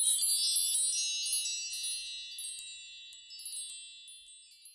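High tinkling chimes: many overlapping bright ringing tones struck in a cascade, with fresh strikes several times, slowly fading away.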